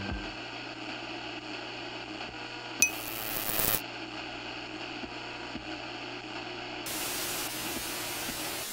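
A steady low electrical hum under hiss, with a short burst of static noise starting with a click about three seconds in, and louder static hiss from about seven seconds in.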